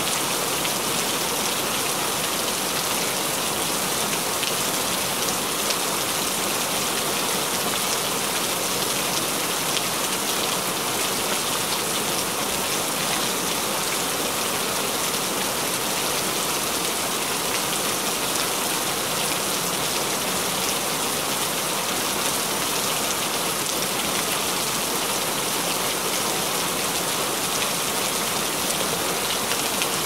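Steady rain falling: an even hiss of many drops with no change in level.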